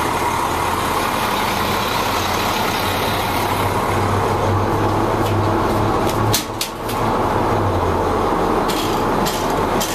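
The International DT466 inline-six diesel of a 2003 International 4300 fuel truck idling steadily, with a few light clicks about six and nine seconds in.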